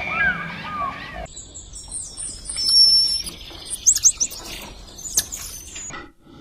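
A bird chirping with high, quick whistled notes and a few sharp clicks. It follows a brief tail of lower, honking calls that cut off abruptly about a second in.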